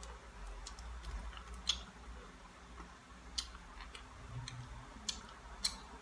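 Small, sharp clicks of someone eating at a table, about four distinct ticks spread a second or two apart, over a faint steady low hum.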